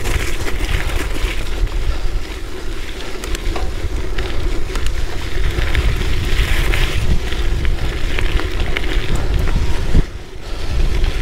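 Wind buffeting the microphone of a handlebar-mounted action camera as a Surly Midnight Special gravel bike rolls along a wet gravel road. The tyres hiss and crackle over the stones. The noise dips briefly near the end.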